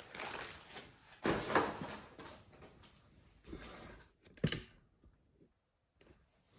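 Packaging and parts being handled out of a box: several short rustles and scrapes, then a sharp click about four and a half seconds in, followed by a second or so of silence.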